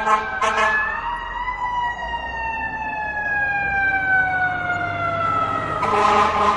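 Fire truck siren and horn: two short horn blasts at the start, then the siren tone rises briefly and slides slowly down in pitch for about five seconds. A long, loud horn blast comes in near the end.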